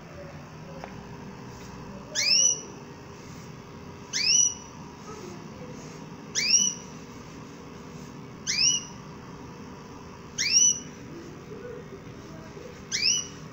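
Domestic canary giving six short rising whistled calls, each a quick upward sweep about two seconds apart.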